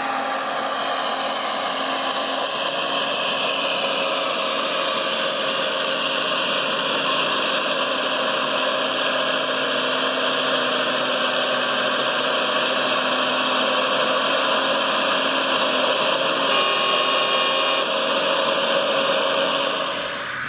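Small electric motors and gearboxes of radio-controlled construction models running steadily with a layered whine that drifts slowly in pitch. The sound drops off suddenly near the end.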